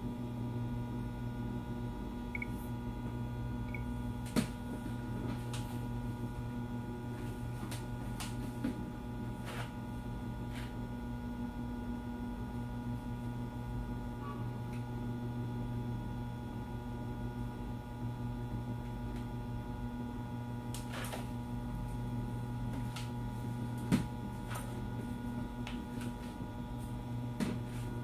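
Steady electrical hum made of several constant tones, with a few faint clicks scattered through it.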